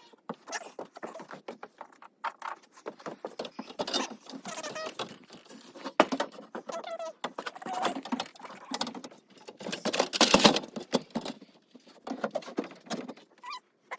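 Hard plastic parts of a Rubbermaid resin shed being handled and fitted together: irregular taps, clicks and rustling, with a sharp snap about six seconds in and a louder burst of clattering around ten seconds.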